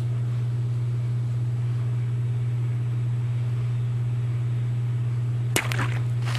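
A steady low hum throughout, then about five and a half seconds in a single sharp hit as a non-serrated Boker Snowflake knife slashes through a plastic water bottle and the cut top falls onto the concrete.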